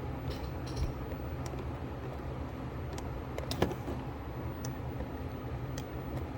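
Steady low hum with scattered light clicks, one sharper click about three and a half seconds in.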